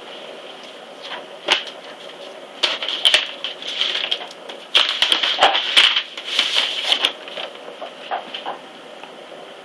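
Paper record envelope rustling and crinkling as a shellac 78 rpm record is slid out of it, loudest through the middle, with scattered clicks and light knocks of handling.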